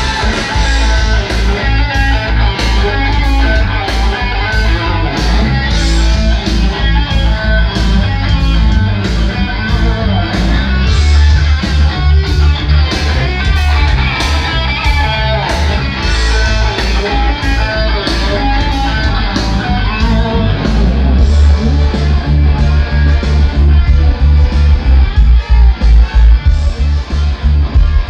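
Rock music with electric guitar played loud through a PA rig of Cerwin-Vega full-range cabinets over subwoofers crossed over at 70 Hz. It has heavy deep bass and a steady beat, and the bass gets heavier about halfway through.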